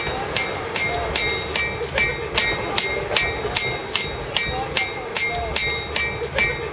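Blacksmith's hammer striking metal on an anvil in a steady rhythm, about two and a half blows a second, each blow ringing.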